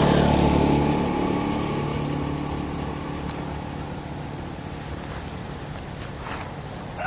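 A motorcycle passing close by, its engine loudest at the start and fading away over the next few seconds.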